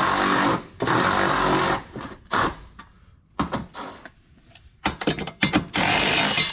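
Milwaukee cordless ratchet running in bursts on a step-bracket nut: two runs of about a second at the start, a few short blips, a run of quick clicks and another longer run near the end. The ratchet is set to reverse, so it is backing the fastener off instead of driving it on.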